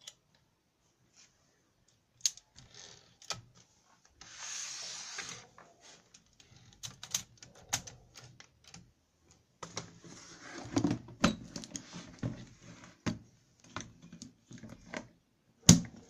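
A 1958 Keller und Knappich Princess 300 portable typewriter being worked by hand: scattered mechanical clicks and rattles from its carriage and platen knob, with a stretch of sliding noise about four seconds in and a busier run of knocks and clicks from about ten seconds. Near the end comes one sharp, loud click as its carrying case is latched.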